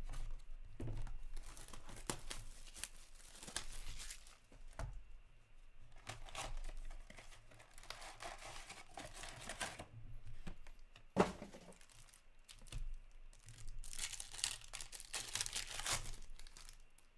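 Shrink wrap being slit and torn off a hockey card box, the cardboard flap pulled open, and a foil card pack torn open. The crinkling and tearing come in several bursts, with one sharp click about eleven seconds in.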